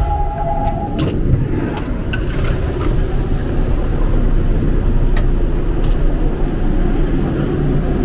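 Seoul subway train running, heard from inside the car: a steady low rumble of wheels on track with sharp clicks and knocks scattered through it. A steady tone stops about a second in.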